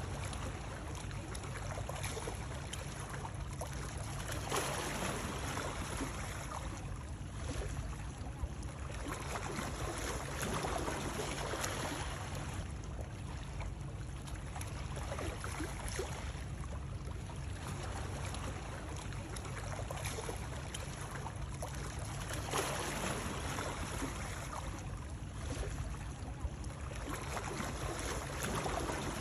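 Continuous rushing water noise with a deep low rumble, swelling and easing every few seconds like water washing or lapping.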